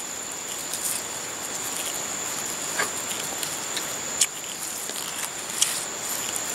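Papery wasp-nest comb rustling and crackling lightly as it is handled, with a few sharp clicks about three, four and five and a half seconds in, over a constant high-pitched insect trill.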